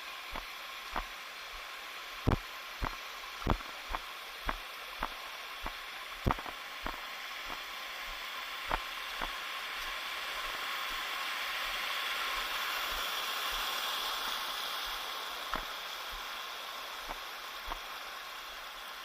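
Footsteps on a jungle trail, about two a second, thinning out about halfway through, over a hiss of running water that swells in the middle and fades again.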